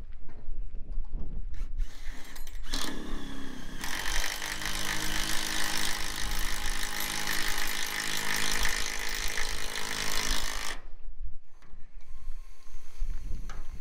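Cordless drill driving screws into steel roof sheeting: a brief spin about three seconds in, then about seven seconds of steady running with a high hiss, which stops abruptly. Low wind rumble on the microphone throughout.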